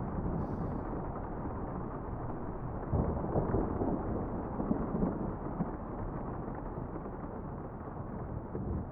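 Thunderstorm ambience: a low rumble of thunder over steady rain. It swells suddenly about three seconds in and slowly dies away toward the end.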